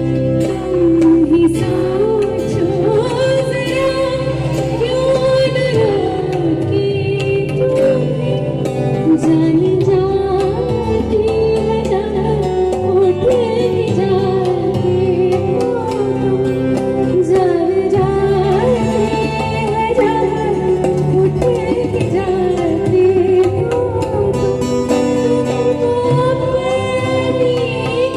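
Live Indian vocal music: a woman sings a gliding, ornamented melody, accompanied by tabla, guitar and keyboard.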